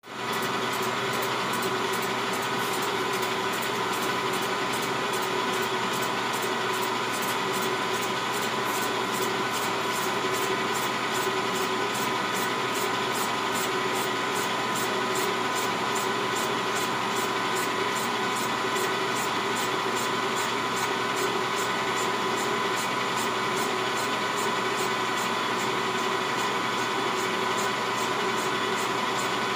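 Benchtop metal lathe running steadily, spinning an aftermarket Stihl MS 660 chainsaw cylinder in its chuck. A constant motor and gear whine with an even, fast ticking over it.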